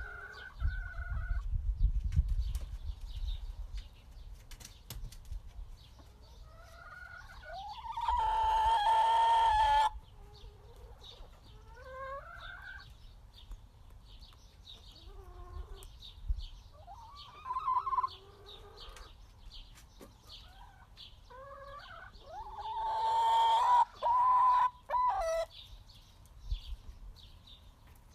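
Backyard chickens clucking and calling: scattered short clucks and rising calls, with two longer, louder drawn-out calls, one about eight seconds in and one about twenty-three seconds in.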